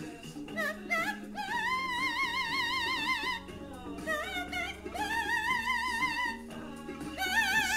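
Amazon parrot singing in an operatic style: high held notes with a wide, even vibrato, linked by short sliding phrases, over lower, steadier notes.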